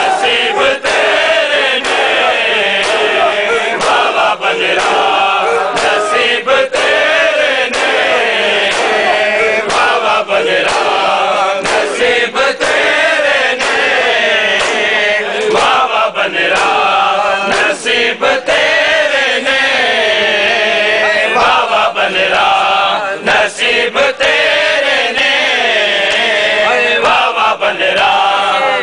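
Large crowd of men chanting a nauha together, with frequent sharp slaps of hands beating on bare chests in matam cutting through the singing.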